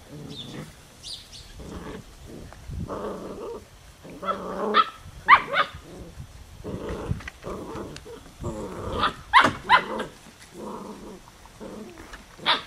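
Puppies play-fighting: a steady stream of small growls and grumbles broken by short, sharp high-pitched yips and barks.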